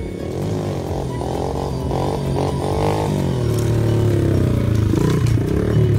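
Pit bike engine revving up and down as it is ridden, the pitch rising and falling several times and the sound growing louder toward the end.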